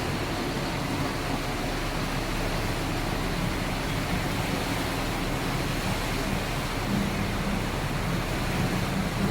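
Steady rush of floodwater with a low engine hum underneath.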